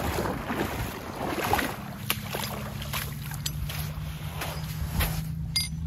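Sea-Doo Spark Trixx jet ski engine idling with a steady low hum that settles in about two seconds in, after a stretch of water splashing and churning around the hull.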